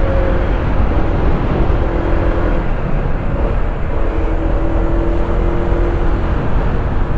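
Honda ADV160 scooter's single-cylinder engine running steadily under load while climbing a hill, under a dense steady rush of wind noise.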